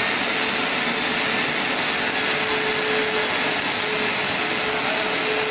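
Automatic circumferential-seam welder laying both end seams of a steel tank at once, its two welding arcs giving a steady hiss and crackle as the tank turns. A faint humming tone comes and goes under it.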